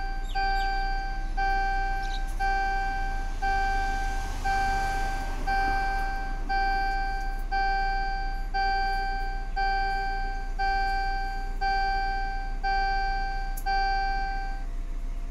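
Scania K410's low brake-air-pressure warning buzzer beeping over and over, about one long beep a second, and stopping near the end. It signals that the air pressure in the brake system is low.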